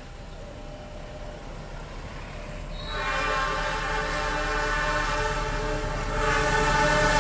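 Approaching diesel locomotive sounding its air horn: a sustained multi-note chord that grows much louder about three seconds in and again near the end, over the low rumble of the train.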